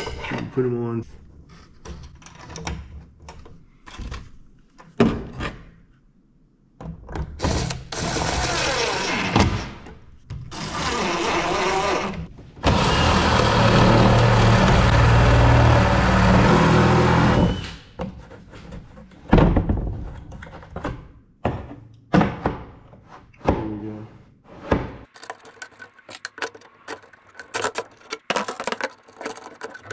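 DeWalt cordless impact driver driving screws into a plywood cabinet, in several bursts, the longest about five seconds, with knocks and clatter of hardware being handled between bursts.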